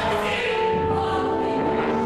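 Slow contemporary academic music of held, overlapping chords with a choral sound; the chord shifts about half a second in and again near the end.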